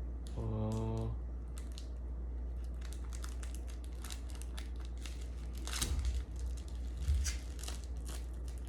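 Plastic onigiri wrapper crinkling and tearing in irregular crackly rustles as it is unwrapped along its numbered pull strip. A short hummed voice sounds about half a second in, and a steady low hum runs underneath.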